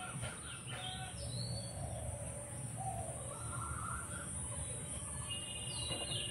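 Faint bird chirps, a few short calls about half a second in and again near the end, over low steady background noise.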